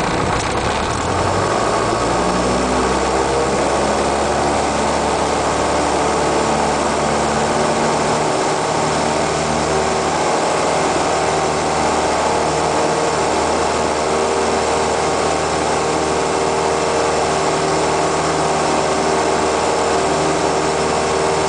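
Cessna 172's engine and propeller rising in pitch over the first couple of seconds as power comes up, then running steadily at high power: the go-around part of a touch and go, taking off again after touching down.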